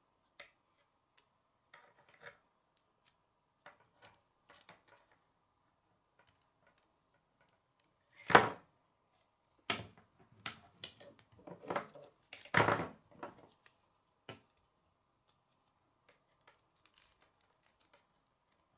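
Plastic K'nex rods and connectors clicking and snapping together as they are fitted by hand, scattered light clicks with two louder clacks about eight and twelve and a half seconds in.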